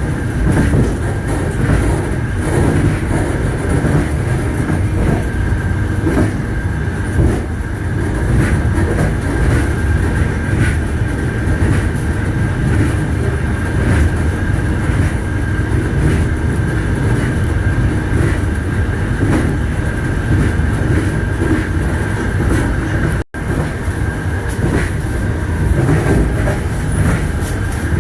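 Passenger train wheels running on rails, a steady rumble with the clack of wheels over rail joints. The sound cuts out for an instant about four-fifths of the way through.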